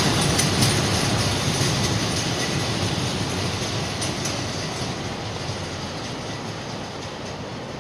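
Container wagons of a freight train rolling past on the rails, their wheels making a steady rumble with a few clicks over rail joints. The sound fades steadily as the tail of the train draws away.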